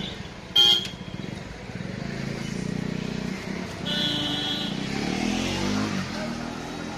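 Road traffic: cars and motorcycles running and passing, with one engine sweeping past around five seconds in. A brief loud high tone sounds about half a second in, and another high tone sounds around four seconds in.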